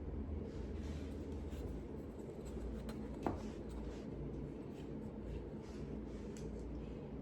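Steel knife blade, the Massdrop Buc, being stroked by hand across a whetstone: repeated light scraping strokes, with one sharper click a little over three seconds in.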